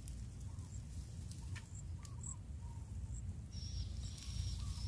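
Quiet outdoor ambience: scattered faint bird chirps over a steady low rumble, with a couple of faint clicks about one and a half seconds in.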